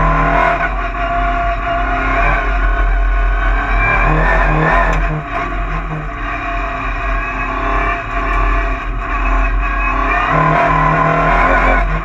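Cupra race car's engine revving hard, heard from inside the stripped cabin, its pitch climbing and then dropping several times through the run.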